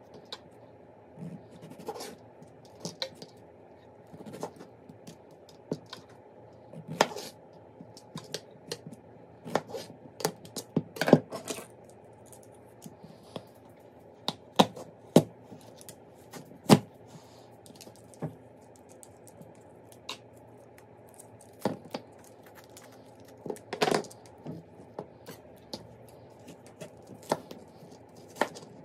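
Knife cutting strawberries and a green apple on a plastic cutting board: irregular sharp taps and clicks as the blade meets the board, over a steady low hum.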